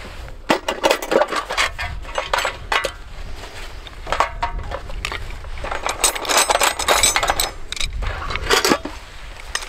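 Steel tent pegs clinking and rattling against each other and the metal toolbox as a hand rummages through them, in two long bouts of jangling.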